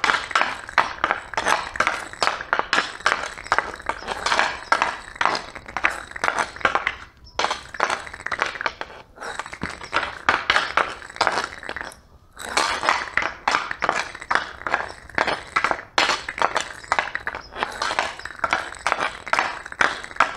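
Hockey stick stickhandling a 6-ounce Fly Puck Pro dryland puck on concrete: a rapid run of clacking taps of the blade against the puck and the ground, several a second, with a few short breaks.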